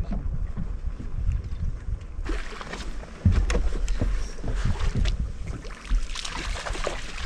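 A hooked bass thrashing and splashing at the surface beside the boat as it is brought to the landing net. The splashing starts about two seconds in and is strongest near the end, over a steady low rumble of wind on the microphone.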